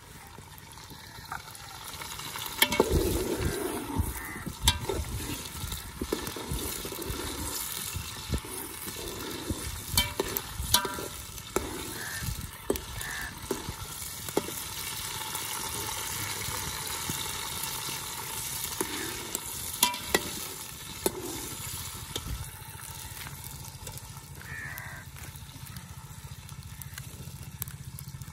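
Peas and onions frying in ghee in a metal pot, sizzling steadily. From about two seconds in, a slotted metal spatula stirs and scrapes through them, with sharp knocks against the pot now and then.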